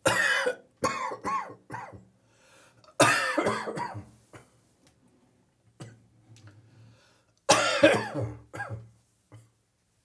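A person coughing up morning catarrh in several chesty bouts, with throat clearing. The longest bouts come about three seconds in and again near the end.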